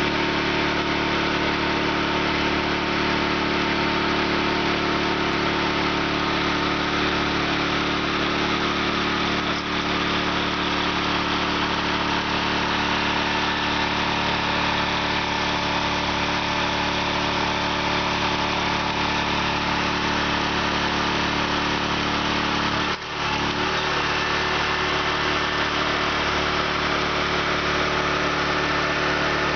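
Engine idling steadily, a constant hum with a short dropout about three-quarters of the way through.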